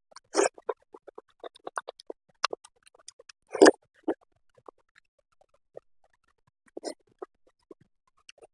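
Close-miked eating sounds from a person eating biryani with her fingers: wet mouth clicks, lip smacks and chewing. Two louder bursts come about half a second in and just before four seconds in, and the sounds thin out in the second half.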